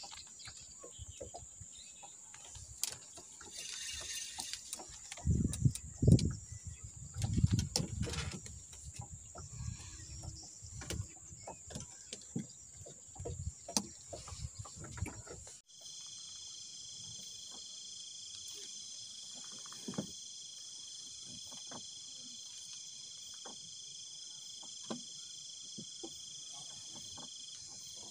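Insects buzzing with a steady high tone, under scattered clicks and a run of loud low thumps and knocks from handling on the boat. About halfway through it gives way to a night insect chorus of crickets, several steady high tones layered together.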